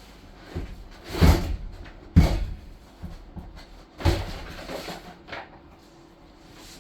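A few heavy clunks and knocks, like things being moved or set down: three loud ones a little over a second in, about two seconds in and about four seconds in, with lighter knocks between.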